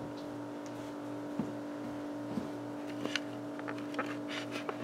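A steady electrical hum with a softer, evenly pulsing drone beneath it, and a few light clicks and taps scattered roughly a second apart.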